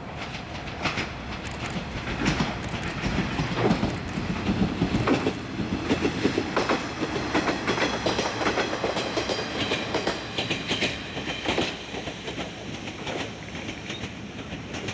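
Isumi Railway diesel railcar running along the line, its wheels clicking over the rail joints in a quick run of knocks. The sound is loudest in the middle and eases off towards the end.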